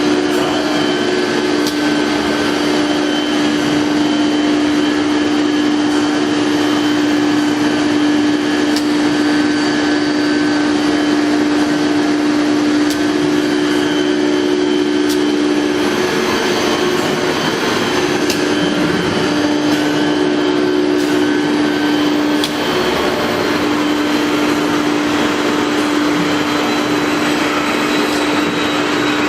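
CNC router running and cutting, its spindle giving a steady high-pitched whine over continuous machining noise. About halfway through, the whine breaks up for several seconds and a rougher cutting noise swells, and a faint, very high tone rises and falls several times.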